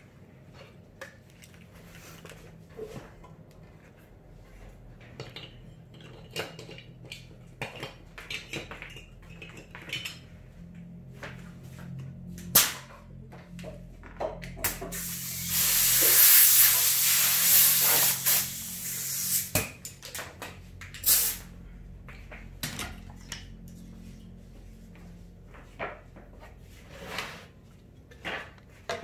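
Compressed air hissing steadily from an air gun on a coiled air hose for about four seconds, midway through. Around it come scattered short knocks and taps as plywood panels are handled.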